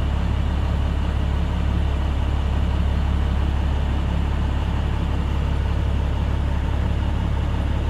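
International MaxxForce DT diesel engine idling at about 700 rpm: a steady low hum that does not change.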